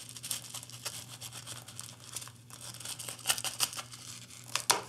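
Coarse granular top dressing rattling and scraping as it is poured and worked in around succulents in a container: an irregular gritty rustle with scattered small clicks, a few sharper ones near the end.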